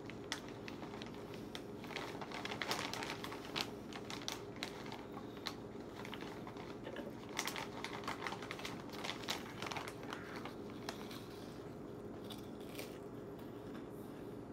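A hand rummaging in a crinkly snack-chip bag of Brim's Spicy Hot Flavored Rings, the bag giving off irregular crackles and rustles that thin out over the last few seconds.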